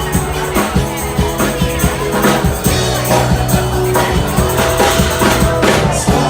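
Live band playing an instrumental passage of a pop song between vocal lines, with drums keeping a steady beat under sustained bass and chords.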